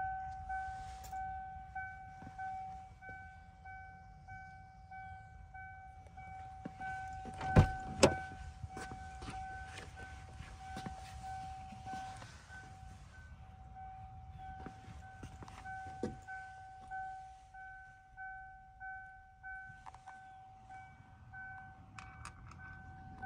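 A Toyota Land Cruiser Prado's cabin warning chime sounds continuously as an evenly pulsing tone while a door stands open. Two sharp knocks come close together about a third of the way in, with light rustling of handling around the seats.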